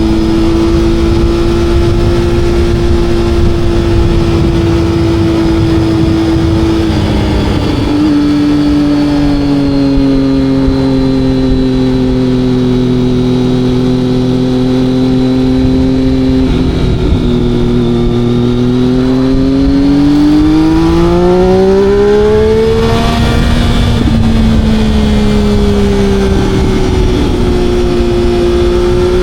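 Motorcycle engine running under way at a steady speed. Its note steps down about 7 seconds in, then climbs steadily for about six seconds as it accelerates, and drops sharply at an upshift before settling again.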